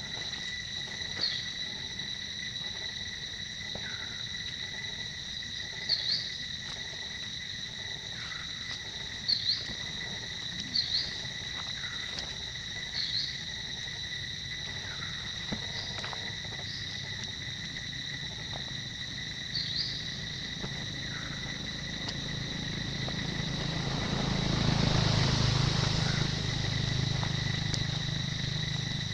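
Insects drone steadily on one high pitch with an overtone, and short chirps come every few seconds. Near the end a louder rush of noise with a low hum swells for a few seconds.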